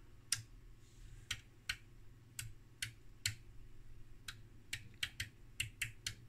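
Irregular sharp clicks, about seventeen in six seconds, from a switch on the front panel of a homebrew ICM7216B frequency counter being worked to change its readout and mode. A faint low hum runs beneath.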